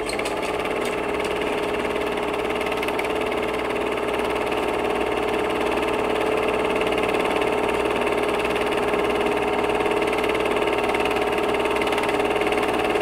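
A loud, steady drone with a strong hum and many held tones layered over it, holding level without any rhythm.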